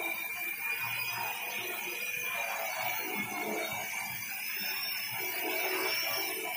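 Multirotor drone hovering, its motors and propellers giving a steady buzzing hum with a high, steady whine over it.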